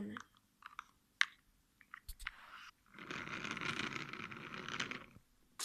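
Light clicks and taps of small plastic toys being handled, with one low thump, then about two seconds of steady scraping noise.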